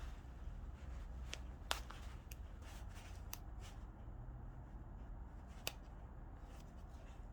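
Trousers and their zipper being handled: faint cloth rustling broken by a few sharp little clicks, the clearest about two seconds in and again near the end.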